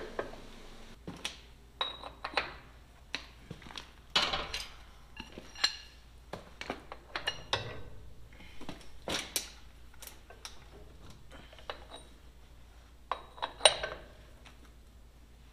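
Irregular metallic clinks and clanks, some ringing briefly, as brake shoes and their hardware are fitted by hand on a heavy truck's front axle. The sharpest clank comes near the end.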